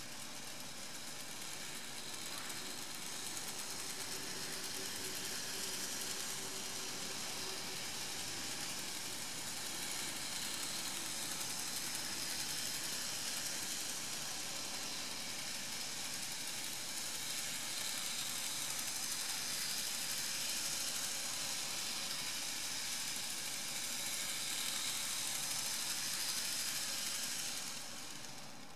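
N gauge model of a Toei 12-600 subway train running around a small oval of track: a steady, high whirring hiss of its small motor and wheels on the rails, swelling and easing every several seconds, and dropping off just before the end.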